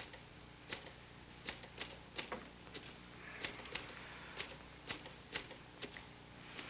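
Typewriter being typed slowly: about fifteen separate key clacks at uneven spacing.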